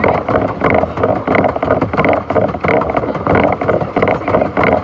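Pedal boat being pedalled: the paddle wheel churning the water and the pedal drive knocking in a steady rhythm of about three beats a second.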